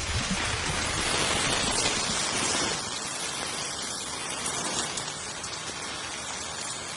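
A steady rushing hiss, like heavy rain falling, with a low rumble underneath that fades out about three seconds in.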